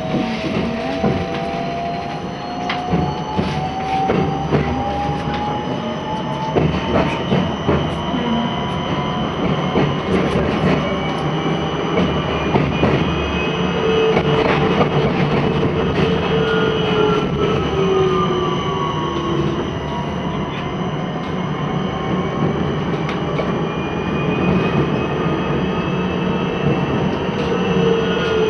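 Electric tram heard from on board, its traction motors whining. The whine rises in pitch as the tram speeds up over the first several seconds and falls again later as it slows, including toward a stop near the end. The wheels click over the rails throughout.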